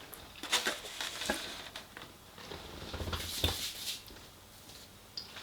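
Close-up chewing of fried chicken: irregular soft smacks and crunchy clicks from the mouth.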